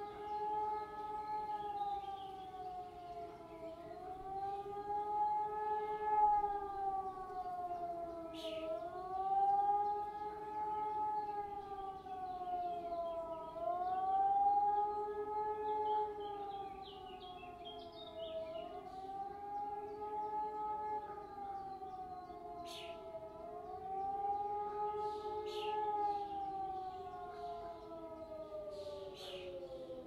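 Several civil-defence sirens sounding the German public warning signal together, a mechanical E57 and electronic ECI sirens among them. Their howl rises and falls about every five seconds in two overlapping tones slightly out of step. Near the end the tones glide down as the signal winds down.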